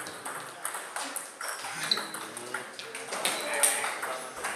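Table tennis rally: the ball clicking sharply off the bats and bouncing on the table in a quick, irregular series of ticks, with people talking in the background.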